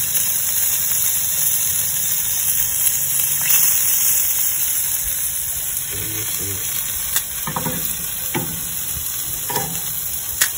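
Baby octopus and shrimp skewers sizzling on a hot grill grate: a steady hiss, with a few light clicks in the second half.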